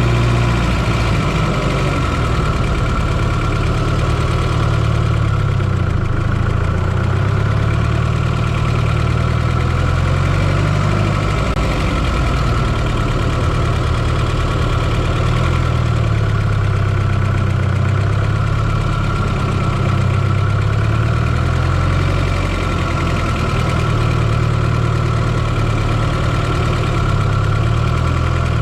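1995 Fiat Coupé 2.0 16V turbo four-cylinder engine running steadily at a low, even speed, heard close up from inside the engine bay, without any revving.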